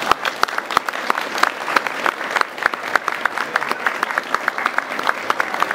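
Applause from a small group of people, many hands clapping unevenly.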